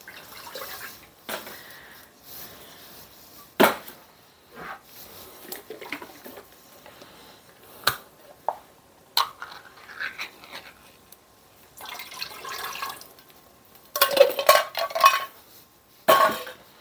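Cans of coconut milk being emptied into an enamel pot: the metal can tapping and scraping against the pot, with several sharp clinks and the thick milk sliding out. A louder spell of clatter and handling noise comes near the end.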